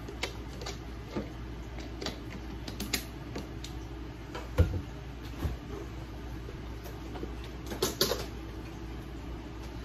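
Scattered light clicks and knocks of kitchen handling, with one louder, deeper thump about halfway through and a short cluster of clatter near the end, over a steady low hum.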